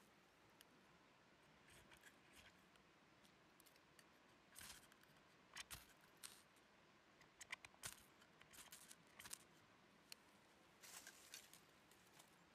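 Knife blade scraped along a ferro rod in short, faint rasping strokes, coming in a few clusters from about four and a half seconds in, throwing sparks that light the tinder near the end.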